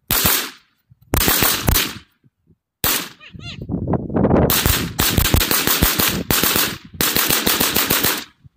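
AR-15 rifle fired rapidly in semi-automatic strings: about five quick volleys of shots with short pauses between them, the longest volley a little past the middle.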